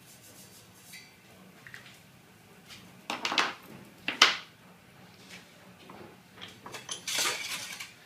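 Metallic clanks and rattling from a bench vise and a length of perforated steel cable tray: two sharp clanks about three and four seconds in, the second the loudest, as the vise is loosened. Near the end comes a longer clattering rattle as the tray is pulled out of the jaws.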